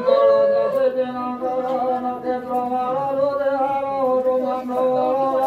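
A man chanting Sanskrit devotional verses into a microphone, sung on a steady held pitch with no pauses.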